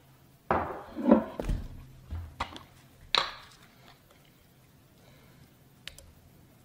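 Kitchen handling sounds: a handful of short knocks and clicks of containers and utensils as minced garlic is added to the skillet, most of them in the first three seconds and one last click near the end.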